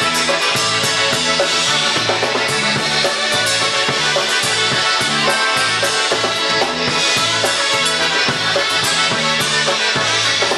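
Live polka band playing a dance tune: a steady repeating bass line with drums and cymbals keeping an even beat under the melody.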